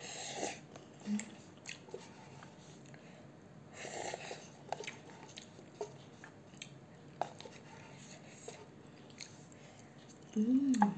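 A person slurping and chewing instant noodles: a short slurp at the start and another about four seconds in, with light scattered clicks and chewing between them. A short hum from the eater near the end.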